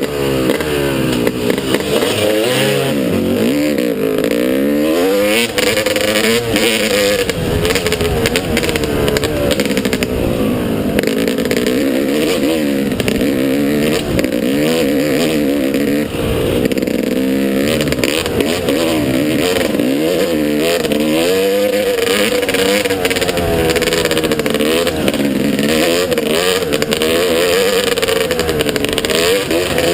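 Motocross motorcycle engine running hard, its pitch rising and falling over and over as the throttle is opened and closed and the gears change.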